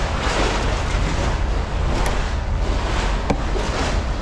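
Steady rushing noise of wind on the microphone with a deep low rumble, and a single sharp click a little past three seconds in.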